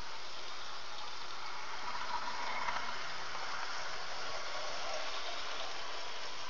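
An H0-scale model train running on its track: a steady hiss of rolling and motor whir that swells a little in the middle as it passes.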